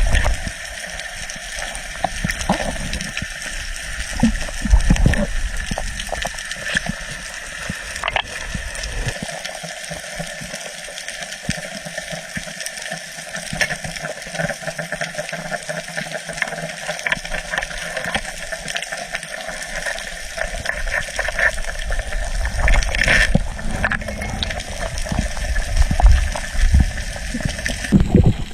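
Steady rushing and gurgling of sea water, with a few low thumps.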